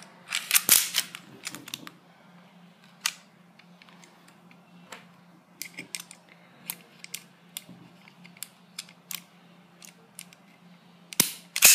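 Clicks and clatter of a 1911 gas blowback airsoft pistol being put back together: a loud run of clicks as the slide goes onto the frame near the start, scattered small clicks of parts being handled, and a sharp mechanical snap near the end.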